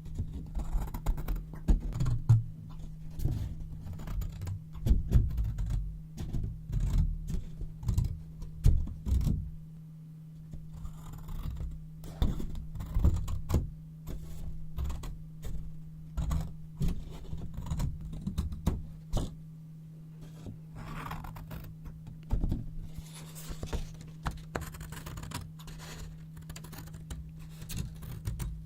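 Yellow paper being handled and cut with scissors close to the microphone: an irregular run of crisp snips, taps and paper rustles, some louder than others.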